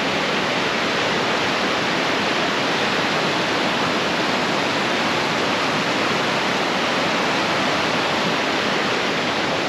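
River water rushing past, a steady, even hiss with no let-up.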